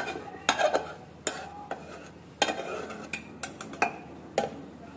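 Slotted metal spatula scraping and tapping a non-stick pan as thick masala paste is scraped out into a pressure cooker: irregular scrapes and sharp metal clicks.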